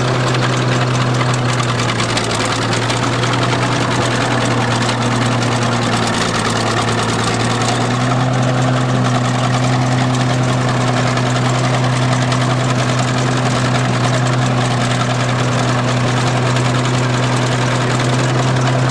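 An engine running steadily at an unchanging idle, a constant low hum with no revving.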